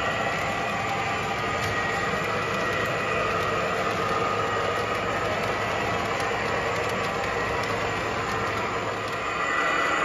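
O gauge model freight train running: covered hopper cars rolling along curved track with a steady rolling rumble and faint clicks.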